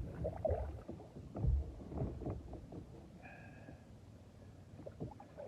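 Scattered knocks and clicks of gear being handled on a fishing kayak, with a couple of dull thumps against the hull in the first half, and a brief high chirp about three seconds in.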